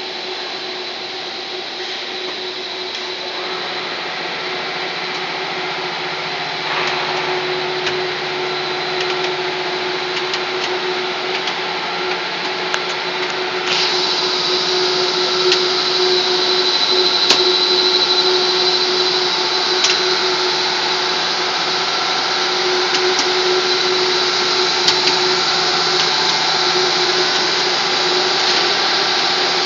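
Running WPC profile extrusion line: a steady machine drone from the extruder's electric motors and gearbox, with a constant low hum and a constant high whine. The hiss grows louder about 14 seconds in, and there are scattered faint ticks.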